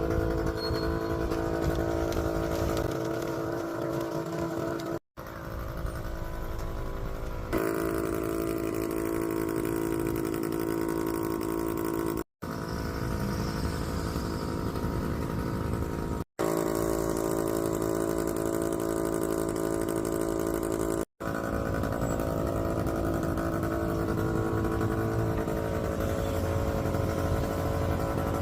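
A steady engine drone that holds one pitch within each stretch, broken by several sudden cuts.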